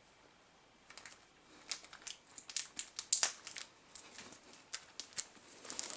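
Small plastic packet crinkling and crackling in the fingers as a tiny bead is worked back into it, in irregular bursts starting about a second in.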